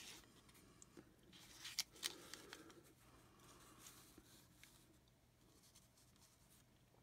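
Faint light taps and slides of trading cards being handled and set down by hand, with a couple of sharper clicks about two seconds in.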